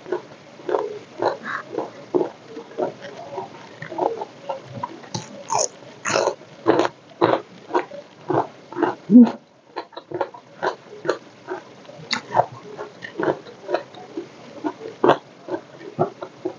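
Close-up eating sounds: crispy fried omelette being chewed with wet mouth smacks, about two chews a second, crunchier for a few seconds in the middle. One louder low sound, like a gulp, comes a little after halfway.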